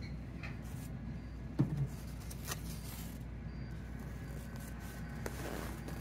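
Steady low hum, with a dull thump about a second and a half in. A rustle near the end as a plastic cap is stretched and pulled down over foam-covered locs.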